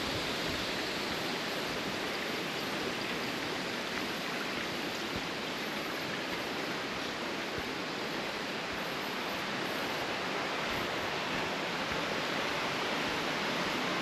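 Steady rush of flowing water from a forest stream and waterfall, an even hiss with no distinct events.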